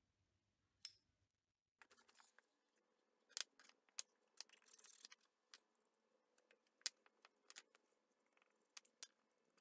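Faint scattered clicks and light taps of small steel workpieces and a marker pen being handled and set down on a workbench.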